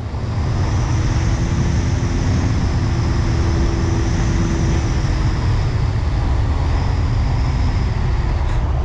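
Wind rushing over the onboard camera of an FPV flying wing in a fast, low pass, with a steady hum from its electric motor and propeller under the rush.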